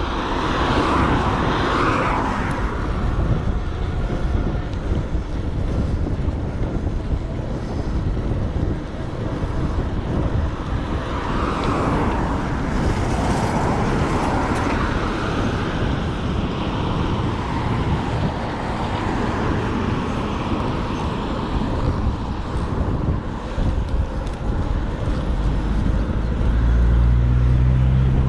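Road traffic heard from a moving bicycle: a steady rush of noise with vehicles going by, swelling a couple of times. Near the end a vehicle's engine comes up close, rising in pitch.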